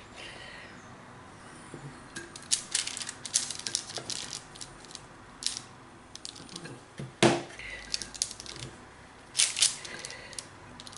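Metal spoon scraping and clicking against the bowl and the paper-lined plate while scooping out and shaping a sticky salmon fishcake mixture, in a run of irregular sharp clicks and scrapes, the loudest about seven seconds in.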